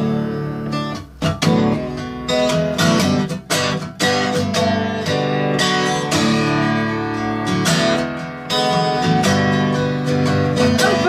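Acoustic guitar strummed in an instrumental passage of a song, with sharp rhythmic strokes over ringing chords.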